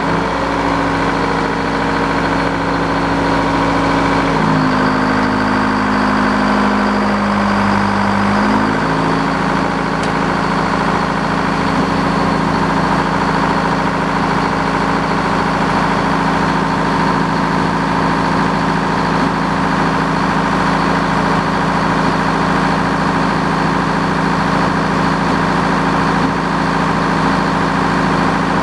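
Sawmill's engine running steadily just after starting up. About four seconds in its pitch dips slightly for a few seconds, then settles back to an even run.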